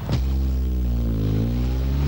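Background music: sustained low synthesizer-like tones held together as a chord, some of them sliding in pitch about halfway through.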